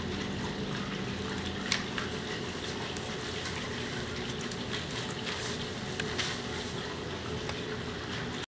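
Steady background hiss with a few faint light clicks, cutting off suddenly near the end.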